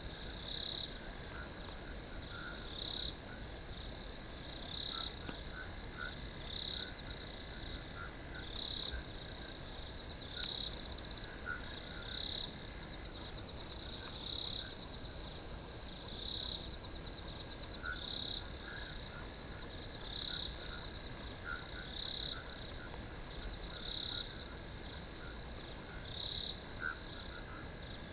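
Field crickets chirping in chorus: a continuous high trill, with louder pulses of chirping recurring every one to two seconds and fainter, lower chirps scattered through.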